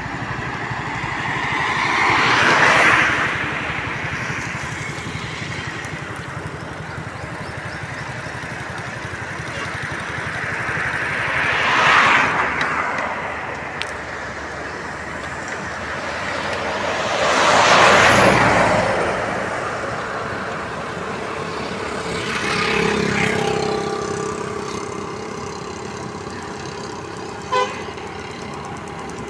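Road vehicles passing one at a time, four passes that each rise to a rushing hiss and fade away, with a few steady tones around the last pass.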